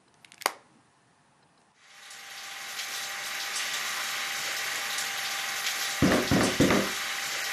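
Water running from a tap: a short click near the start, then the water comes on about two seconds in and runs steadily, with a few louder, deeper thuds near the end.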